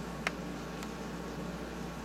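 Quiet room tone: a steady hiss and low hum, broken by a sharp little click about a quarter second in and a fainter one just under a second in.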